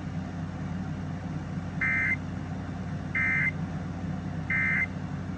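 Emergency Alert System end-of-message signal: three short bursts of warbling digital data tones (the SAME 'NNNN' code), each about a third of a second long and about 1.3 seconds apart, marking the end of the alert. A steady low hum runs underneath.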